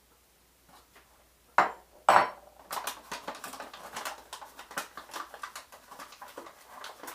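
A spoon knocks sharply twice against a bowl, then clinks and scrapes in quick succession while stirring sugar into vinegar.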